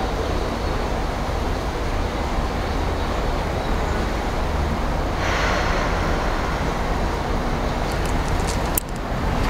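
Steady outdoor city background noise with a deep rumble, like nearby traffic. It grows a little brighter about halfway through, and a few faint clicks and a brief drop in level come near the end.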